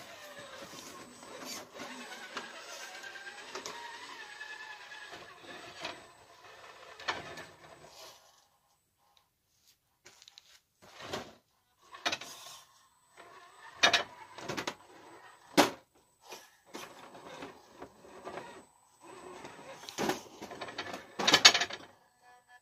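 Electric motor and gearbox of a 1/10 scale RC crawler whining as it drives, the pitch rising and falling with the throttle. After a short pause come short bursts of motor whine and sharp knocks and clatter as the truck climbs over rocks and wooden ramps, the loudest near the end.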